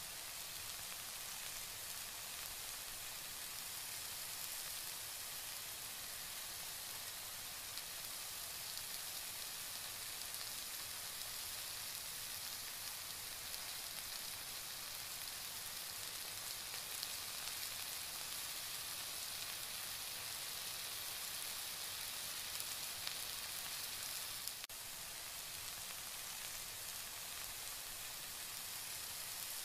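Tomato curry bubbling and sizzling in an open stainless-steel pan: a steady hiss that briefly drops out about 25 seconds in.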